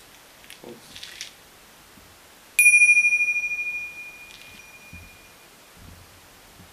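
Small hand bell held up to a microphone and struck once about two and a half seconds in, ringing one high clear note that pulses slightly as it fades over about two seconds. Faint rustling from handling it comes before.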